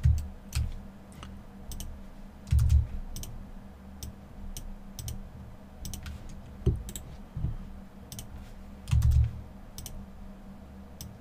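Computer mouse clicks and keyboard key presses at an irregular pace, with a few dull low thumps over a faint steady hum.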